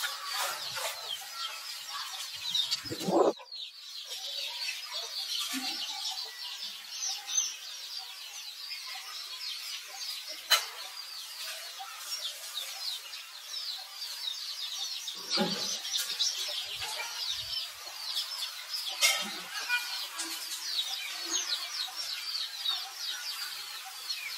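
Dense, continuous chirping of many birds, broken by a few low thumps and sharp clicks, the loudest about three seconds in.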